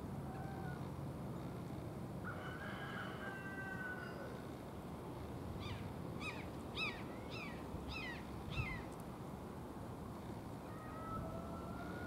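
American robin calling: a run of six sharp, quickly falling notes about half a second apart, starting about halfway through. Under it a steady low rumble of background noise, with a faint drawn-out tone before and after the calls.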